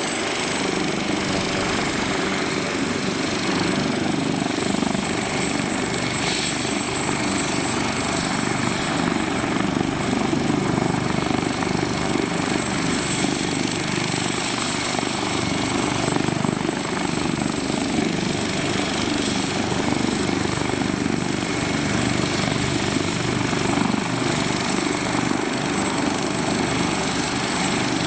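Leonardo UH-139C twin-turbine helicopter running steadily, rotor and engine noise holding an even level, with a thin high-pitched turbine whine on top.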